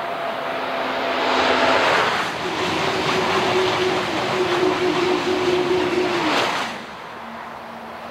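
High-speed electric train passing close at speed: a rush of wheel and air noise that builds over the first two seconds, holds loud and steady, then falls away about seven seconds in. A whining tone rides on it and drops in pitch as the train goes by.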